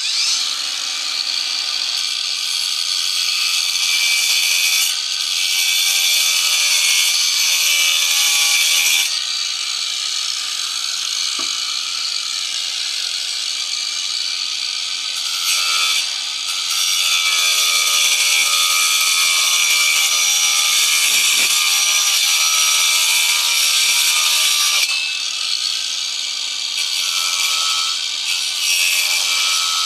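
A power tool running steadily as it works the wood of an airgun stock, with a constant motor hum under a harsh cutting hiss that grows louder for stretches of several seconds as the tool bears harder on the wood.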